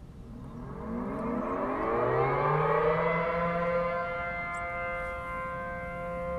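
ACA P-10 outdoor warning siren starting up for a test of the alert signal: its pitch climbs over the first few seconds and levels off into a steady chord of several notes.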